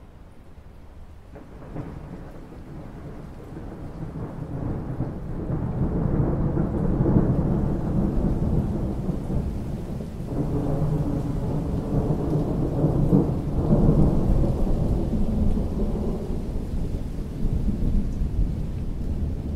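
A long, low roll of thunder over rain falling on water. It builds about two seconds in, swells twice with a dip around halfway, then slowly eases.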